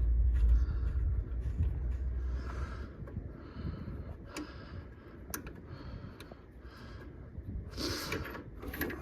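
A boiler fitting being undone with a spanner: short scraping and handling sounds, with a couple of sharp clicks a little past the middle and a louder scrape near the end.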